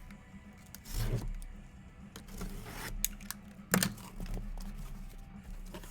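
A sealed cardboard case of trading cards being opened by hand: packaging tearing and crinkling in short bursts, with a sharp knock about four seconds in.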